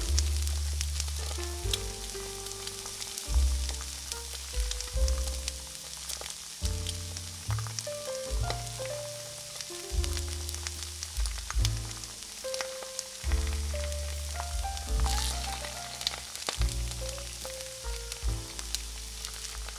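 Oil sizzling and crackling as an okoy fritter of batter fries in a miniature cast-iron skillet, under background music with a steady, stepping bass line.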